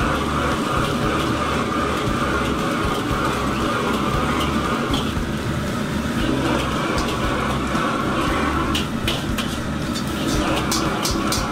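Shrimp deep-frying in a wok of hot oil, bubbling and sizzling over the steady roar of a high-powered wok burner. In the last few seconds, several sharp metal clicks come as a ladle and a strainer ladle knock against the wok.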